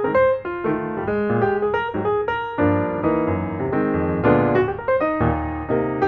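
Background piano music: a steady run of melodic piano notes.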